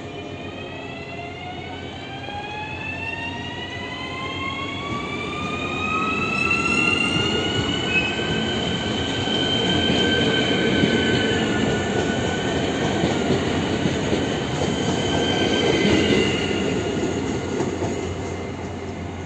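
ZSSK class 661 electric multiple unit pulling away, its electric drive whining in several tones that rise in pitch over the first eight seconds or so and then hold steady. Under the whine runs the rumble of the wheels on the track, loudest in the middle as the train passes close.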